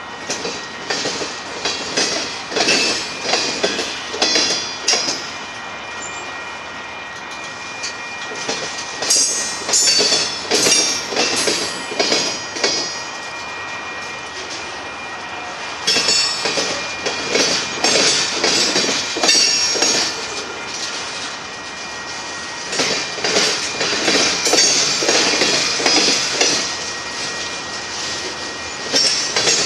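Covered hopper cars of a freight train rolling past close by. Their wheels clack over the rail joints in clusters of rapid clicks, with quieter stretches of steady rolling rumble in between.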